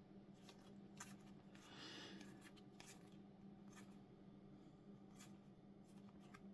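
Near silence with faint handling of trading cards: a few soft clicks and a brief rustle about two seconds in, over a low steady hum.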